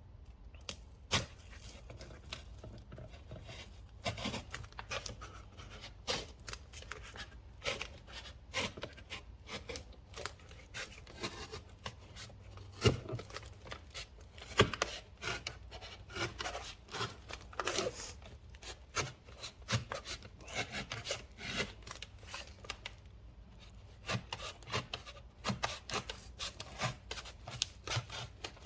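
A blade cutting through the thick cardboard casing of a firework fountain: an irregular run of scraping, rasping strokes and sharp cracks.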